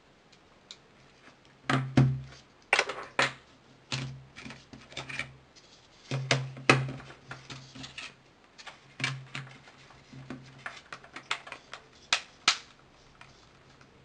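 Irregular sharp clicks and knocks of a ZTE Skate Pro smartphone's plastic housing and back cover being handled and set down on a tabletop during reassembly, some with a dull thud under them. A run of smaller clicks in the second half fits the back cover being snapped into place.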